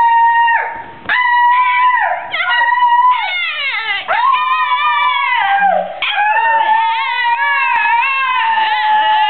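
A small dog howling along in long, wavering notes, several howls in a row with short breaks between them.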